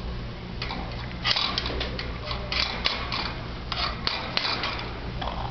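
Poodle puppy eating from a bowl: a run of quick, irregular crunches and clicks of chewing and of food and teeth against the bowl, with a burp near the end.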